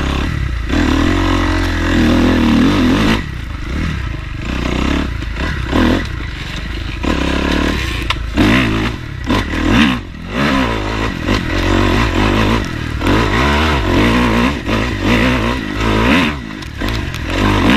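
Dirt bike engine revving up and falling back over and over as it is ridden along a rough trail, with frequent clattering and scraping knocks from the bike over the ground.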